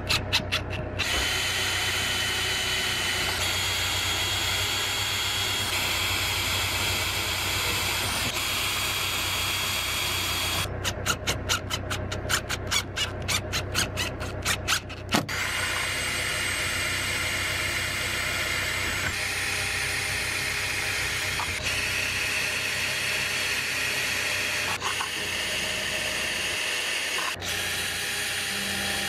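Cordless DeWalt impact driver driving self-drilling screws through a van's sheet-metal roof. It runs with a steady whine while each screw bores in. Around the start and again from about 11 to 15 seconds in, it breaks into fast, even hammering as the impact mechanism kicks in to seat the screws.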